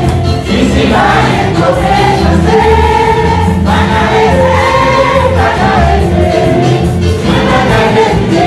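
Live gospel music: a man and a woman singing into microphones over a band, loud and continuous.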